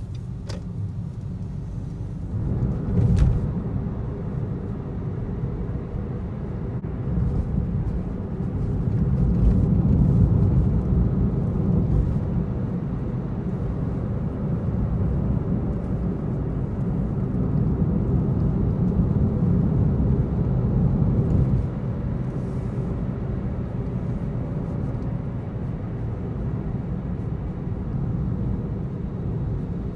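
A car driving along a road, heard from inside the cabin: a steady low rumble of tyres and engine. There is a single knock about three seconds in.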